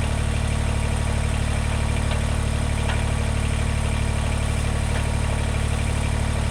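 Kubota BX20 compact tractor's small diesel engine running steadily at an even speed, without revving.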